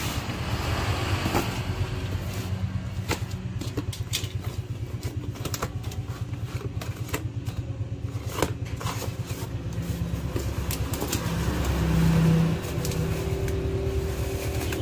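Cardboard boxes being opened and handled, giving scattered sharp clicks and taps, over a steady low engine rumble that swells briefly about twelve seconds in.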